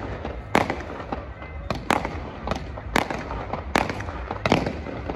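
Aerial fireworks shells bursting in a series of sharp bangs, about one a second, some louder and some fainter, with a low rumble between them.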